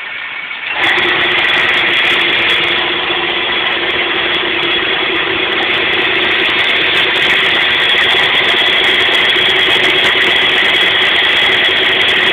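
Metal lathe running and turning a round metal bar against the cutting tool. It gets louder about a second in, then holds steady with a constant whine.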